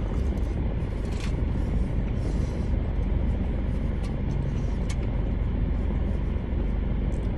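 Steady low rumble of a car, heard from inside the cabin, with a few faint clicks scattered through.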